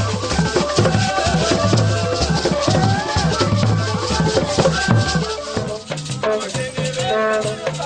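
Ugandan traditional dance music: drums and shakers keep a dense rhythm under singing voices. About five and a half seconds in the deep drum drops out and the music thins and changes.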